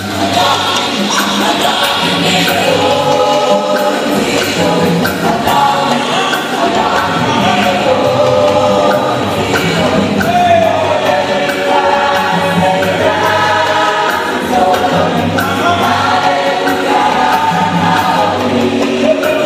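A gospel choir singing in Twi in full voice with a live band of drums, keyboards and guitar.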